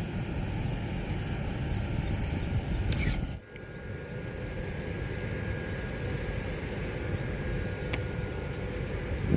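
Steady wind rumble on the microphone at an open shoreline, broken off suddenly for a moment about three and a half seconds in, with a faint click near the end.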